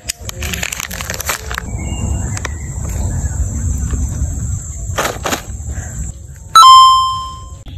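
A loud ringing tone with overtones starts suddenly about two-thirds of the way in and fades away over about a second, over a low rumble with a few clicks.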